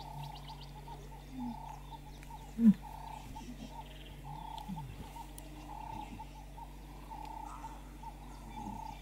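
Lion cubs play-fighting give a few short low grunts, the loudest a sharp one about two and a half seconds in, over a background animal call that repeats in a steady rhythm about once a second.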